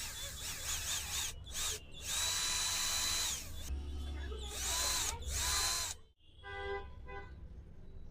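Cordless screwdriver motor triggered in short bursts, its whine rising and falling as it spins up and down, then run steadily for about a second and triggered twice more.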